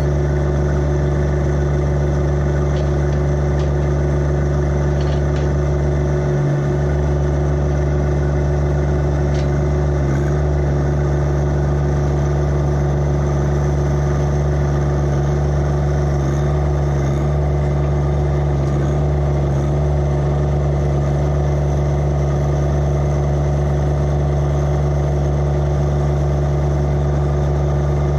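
John Deere 1025R compact tractor's three-cylinder diesel engine running steadily at an even speed, close by.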